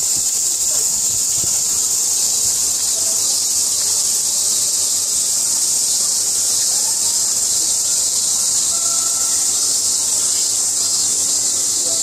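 Cicadas droning in a continuous high-pitched chorus.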